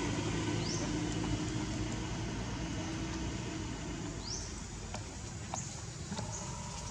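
Steady low outdoor rumble and hum, with two brief, faint rising chirps, one about a second in and one about four seconds in.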